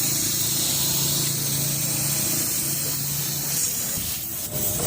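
Steady hiss of compressed air during a tubeless tyre puncture repair, with a low machine hum under it that stops about three and a half seconds in.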